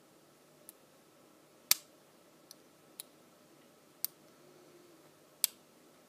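Lock pick and tension tool clicking in the keyway of a Master Lock 410 lockout padlock: six short, sharp clicks at uneven intervals, the loudest about two seconds in.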